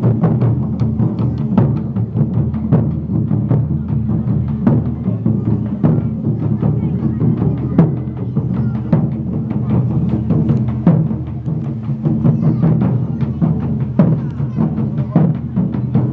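Japanese taiko drums played by a group: a continuous run of heavy strikes, several a second, over a steady low hum.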